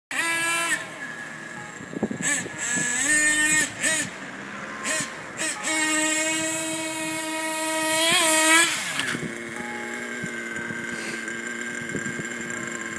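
Small high-revving motors whining, their pitch stepping up and down with short breaks for the first nine seconds or so. After that they settle into a steadier hum of several tones.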